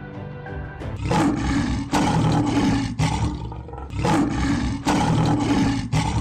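Lion roars, about six in a row roughly a second apart, starting about a second in, over music with held notes.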